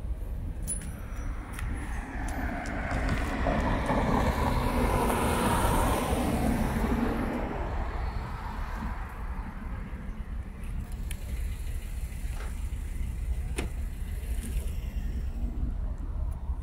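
A car passing by on the road, its engine and tyre noise swelling over a few seconds and then fading away, over a steady low rumble.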